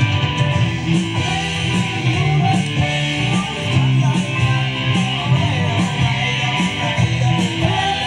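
Live rock band playing loud electric guitars over a drum kit, with a heavy low end and cymbals keeping a steady beat.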